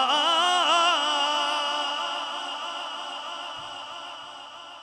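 A man chanting a Quran verse in melodic tilawat style, holding a wavering, ornamented note that ends about a second in. A long echo of the note follows and fades steadily away.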